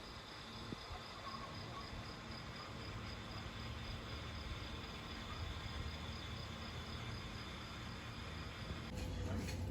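Insects chirring steadily, a high pulsing trill that carries on throughout. Some short rustling or clicking noises come in near the end.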